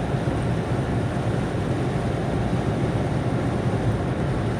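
Steady road and engine noise of a car driving at highway speed, heard from inside the cabin: an even low rumble with no separate events.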